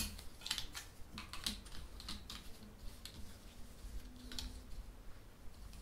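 Light clicks and taps of cardboard game tiles and tokens being picked up and set down on a tabletop. There is a quick run of small clicks over the first couple of seconds, then only a few.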